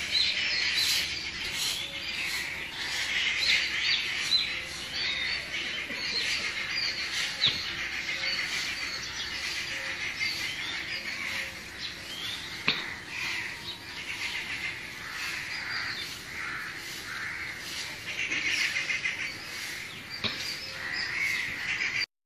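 Many birds chirping and calling at once, a dense chorus of short, high chirps that cuts off suddenly near the end.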